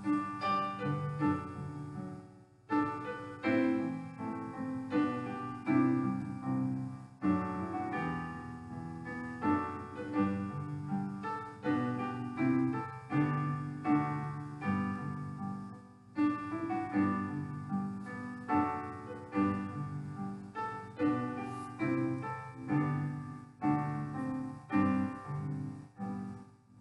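Solo piano music: a slow prelude of chords and melody, with short pauses between phrases, ending just before the end.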